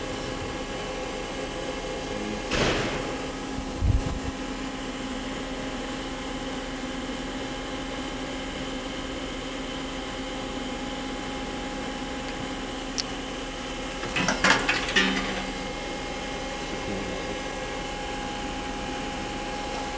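1999 Star SV-32J Swiss-type CNC lathe running with a steady hum, broken by a few short mechanical clunks and clicks and a clattering burst about two-thirds of the way through as its eight-position tool turret indexes from station to station.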